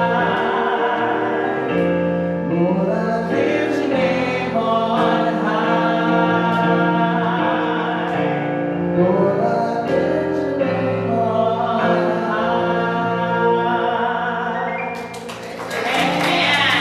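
Gospel worship song sung with instrumental accompaniment, with long held notes. Near the end the song finishes and clapping breaks out.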